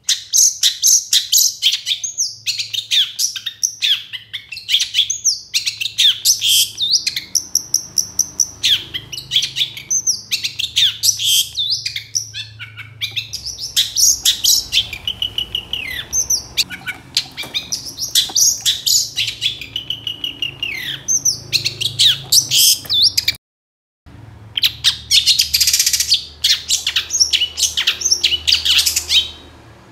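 Long-tailed shrike (cendet) in full song: a rapid, nearly unbroken stream of varied whistles, trills and harsh chattering notes, breaking off for a moment about two-thirds of the way through.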